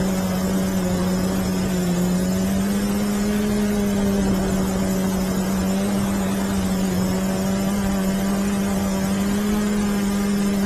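DJI quadcopter's electric motors and propellers buzzing in flight, heard close up from the onboard camera: a steady hum whose pitch drifts slightly as the craft manoeuvres, over a constant airy hiss.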